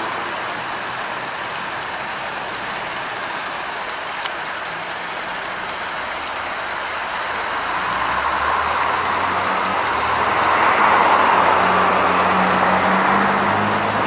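Stream water rushing and splashing over a small rocky cascade, running high after a storm. It grows louder about halfway through, and a low steady hum joins in underneath.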